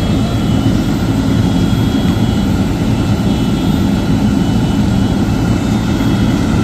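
A loud, steady engine drone, low and unbroken, with a faint high whine.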